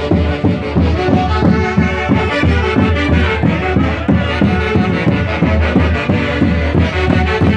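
Peruvian band playing Santiago festival music: held melody lines over a steady beat.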